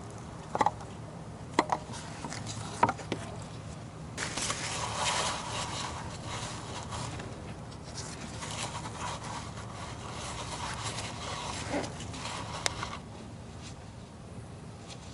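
Three sharp clicks, then about nine seconds of irregular rustling and scraping with one more click near the end: hands handling tools or parts.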